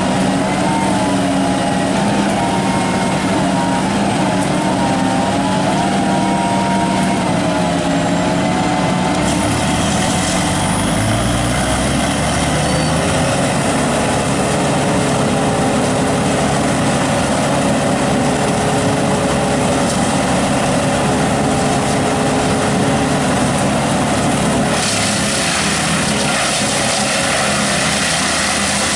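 Engine-powered tree-removal equipment running steadily, its engine pitch shifting about nine seconds in and again near the end.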